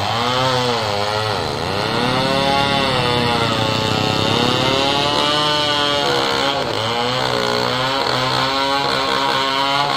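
Two-stroke chainsaw cutting into a coconut palm trunk at its base. The engine pitch dips and recovers several times as the chain loads in the cut, about a second and a half in and again near the end.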